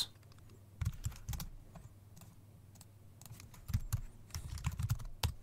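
Keystrokes on a computer keyboard, with mouse clicks among them, in two short runs: one about a second in and a longer one from about three to five seconds in.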